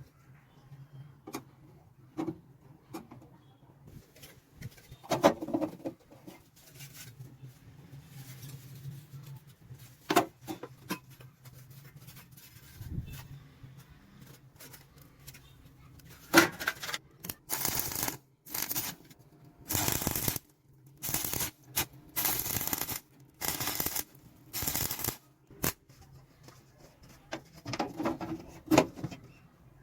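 Handling of a metal toolbox: scattered clicks and knocks over a faint steady hum. Then, through the second half, about a dozen short sliding or scraping noises come one after another, each under a second.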